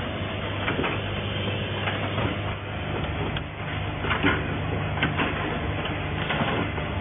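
Automatic nylon cable tie machine running: a steady low hum from its vibratory bowl feeder, with short hissing bursts and clacks at irregular intervals, about one a second.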